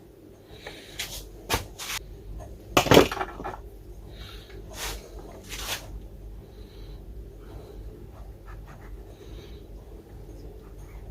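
Hand tools and wires being handled at a workbench: a scatter of small clicks and knocks, with the loudest clatter about three seconds in, over a faint low hum.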